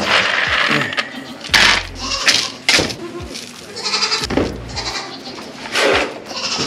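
Nigerian dwarf goats bleating several times, mixed with the rattle of grain feed being scooped into plastic pitchers.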